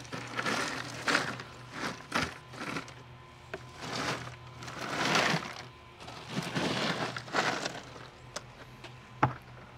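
Crushed ice shifting and crunching in a cooler as whole fish are pushed aside and pulled out of it, in several rough surges with a few small clicks.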